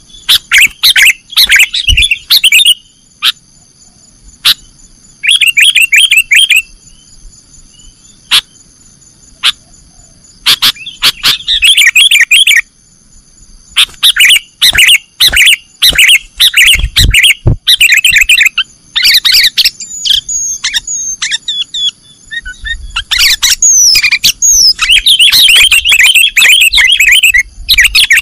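Sooty-headed bulbul (kutilang) giving loud, rapid chattering calls in the fierce 'nggaruda' style. The calls come in bursts of one to two seconds with short pauses between them, and run on unbroken for the last few seconds.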